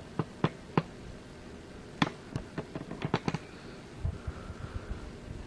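Skinned Squawkers McCaw animatronic parrot's internal motors and plastic mechanism clicking and knocking as it dances: irregular sharp clicks, several close together about three seconds in, then softer knocks near the end.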